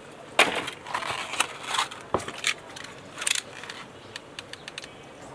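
Action-figure packaging being handled and opened: crinkling plastic and cardboard with scattered clicks and taps. The loudest crackle is about half a second in.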